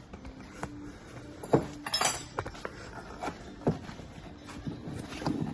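Metal tools and parts clinking and knocking in irregular sharp strikes, the loudest about a second and a half in, followed by a bright ringing clink.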